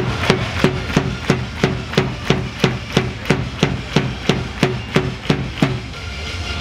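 Cheering drum beaten in a steady rhythm of about three strikes a second over stadium crowd noise; the beat stops about a second before the end.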